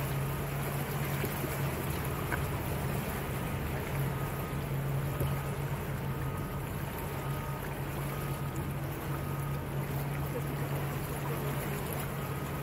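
Small motorboat's engine running steadily under way, a constant low drone over the even hiss of water along the hull.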